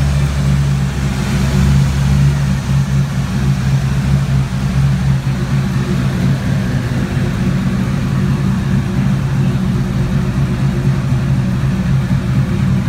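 Turbocharged 363 stroker small-block Ford V8 in a 1987 Mustang idling steadily at about a thousand rpm on the chassis dyno.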